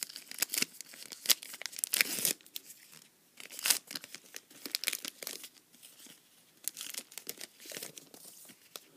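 A trading-card pack wrapper being torn open and crinkled, a run of crackly rustles and short tearing bursts, busiest in the first half.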